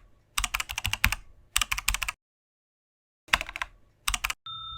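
Typing: four quick runs of key clicks with short pauses between them. A steady high electronic tone starts near the end.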